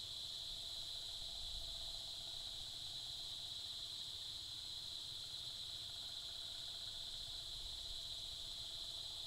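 Steady chorus of insects, a constant high buzz with a faint low rumble underneath.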